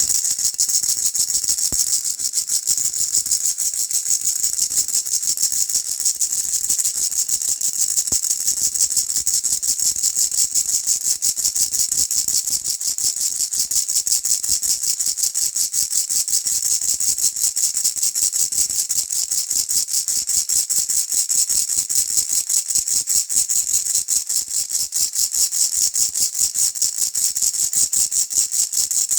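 A multicoloured ball-shaped baby rattle shaken steadily, making a rapid, even rattling that goes on without a break.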